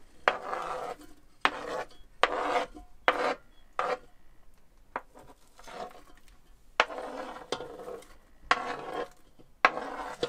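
Metal spoon scraping chopped green bell pepper and onion off a plastic cutting board into the Instant Pot's inner pot: a dozen or so short scrapes, irregularly spaced about one a second.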